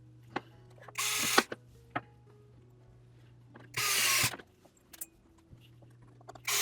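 A small electric screwdriver running in two short bursts, about a second in and again about four seconds in, with a few small clicks of plastic parts being handled between them.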